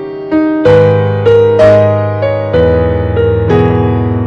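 Background music: a slow electric piano melody, single notes struck about every half second and left to ring over held low notes.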